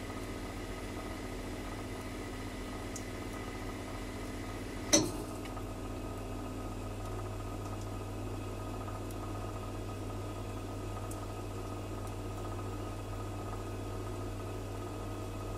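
Gas flow heater running with a steady hiss and low hum. One sharp, loud click about five seconds in, and a few faint ticks scattered through.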